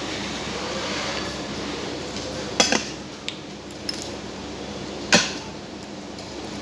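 Eating utensils clinking against dishes during a meal: a few sharp knocks, the loudest two about two and a half and five seconds in.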